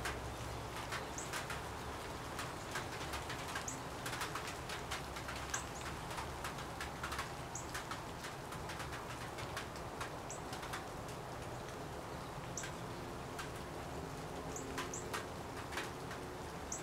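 Paintbrush tapping and scratching on a thickly painted canvas in short, irregular strokes. Behind it are brief high chirps every second or two and, now and then, low cooing.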